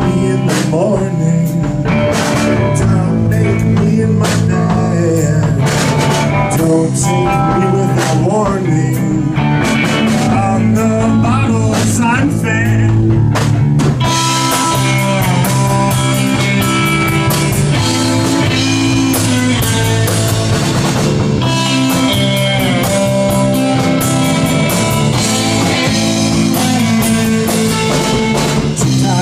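Live rock band playing: electric guitar, electric bass and drum kit at full volume. The cymbals and guitar get busier from about halfway through.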